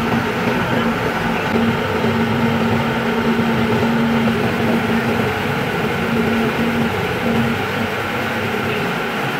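Wheel loader's diesel engine running steadily at close range, a constant hum with no change in speed.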